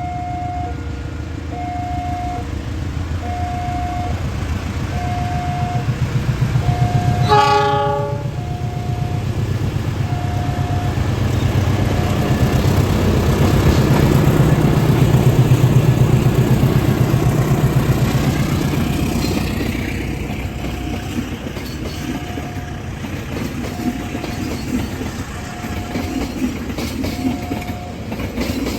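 A train sounds one short horn blast about seven seconds in, then passes close by with heavy rumbling and rapid wheel clatter that peaks midway and eases off. A repeating beep sounds about once a second throughout.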